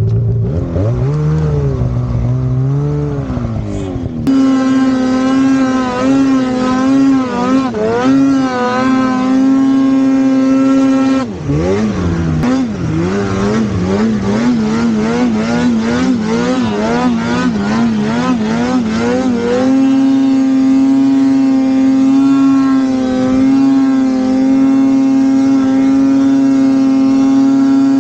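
Two-stroke mountain snowmobile engine under throttle in deep powder. It revs unevenly at lower pitch for the first few seconds, then runs louder and higher with the pitch swinging up and down as the throttle is worked, and holds an even high-rev pitch for the last several seconds.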